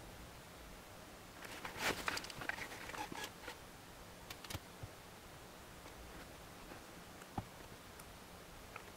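Faint rustling and soft clicks, busiest from about one and a half to three and a half seconds in, then a few single clicks.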